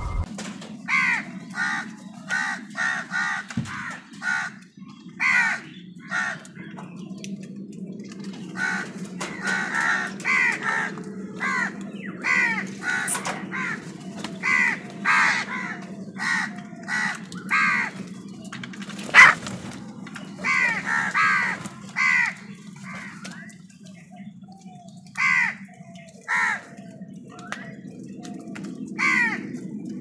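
House crows cawing over and over, harsh calls coming every second or so, sometimes in quick runs of two or three, over a steady low hum. A single sharp knock a little after the middle is the loudest sound.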